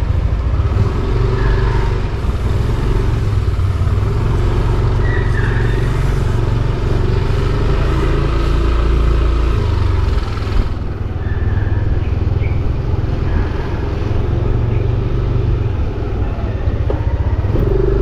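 A vehicle's engine running steadily while riding along a street, with wind rumbling on the microphone.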